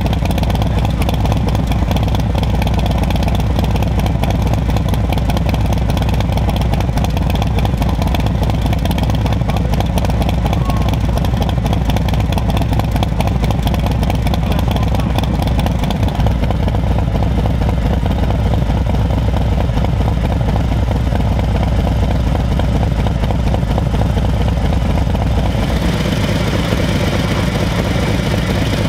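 2024 Harley-Davidson CVO Road Glide ST's Milwaukee-Eight 121 V-twin idling steadily through an SP Concepts Lane Splitter 2-into-1 exhaust, the stock cams unchanged. The tone changes slightly near the end.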